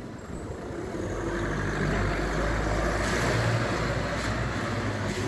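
Wind rumbling on a handheld phone's microphone along a city street, swelling about a second in and easing near the end.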